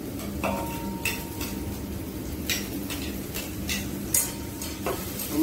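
Chopsticks clinking and scraping against a plate as sliced tomatoes are pushed off it into a pot: several sharp clinks at irregular intervals, over a steady low hum.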